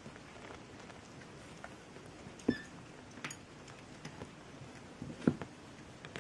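Soft pattering and scratching on a surface, with two short knocks: one about two and a half seconds in and a louder one about five seconds in.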